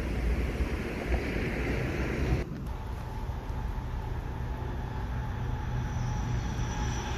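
Container freight train rolling past, with wind buffeting the microphone. About two and a half seconds in the sound changes abruptly to a steadier, quieter rumble of the passing train.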